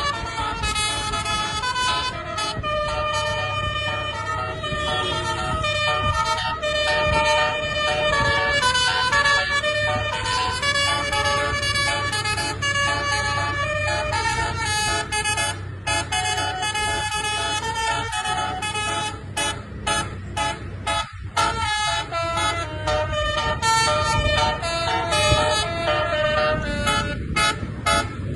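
Putra Aljabar bus's 'telolet' musical air horn playing a long run of tunes, its notes stepping from pitch to pitch, over a low engine rumble. In the last third the horn plays short, quick toots.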